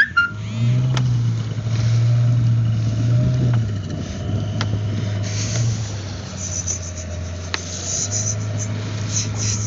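Small fishing boat's engine running steadily at slow speed, a low drone, with water washing along the hull.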